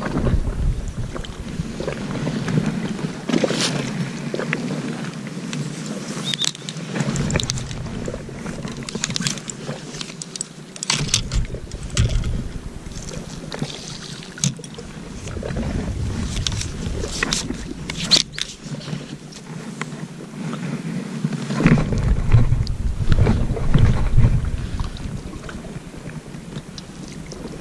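Wind buffeting the microphone in spells of deep rumble, over a steady outdoor hiss with scattered sharp clicks and rustles from handling a fishing rod and reel.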